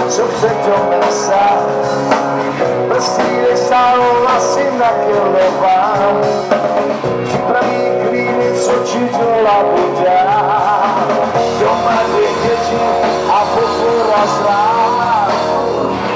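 Rock band playing live, electric guitars and keyboard sustaining chords, with a wavering melody line on top and no break in the playing.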